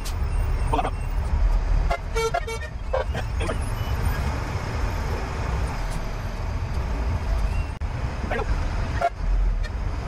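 Diesel engine of an FMTV military truck running as it drives slowly in convoy, heard from inside the cab, with a few short horn toots about two to three seconds in.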